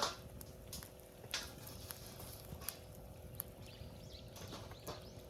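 Campfire of split wood crackling in a small fire stand, with scattered sharp pops every second or so as the wood spits.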